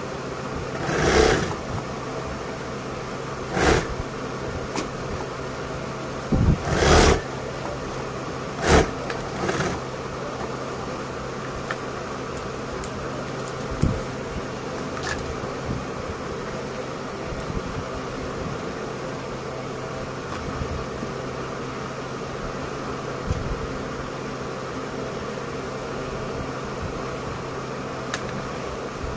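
Industrial sewing machine's motor humming steadily while idling, with several brief loud noises from handling the work during the first ten seconds or so.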